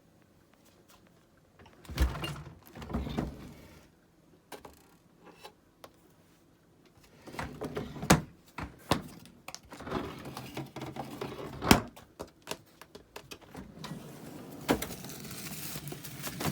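Refrigerator doors and drawers being opened and handled indoors: a run of knocks, clicks and sliding and rustling sounds in two bursts, the second longer, with a steady hiss toward the end.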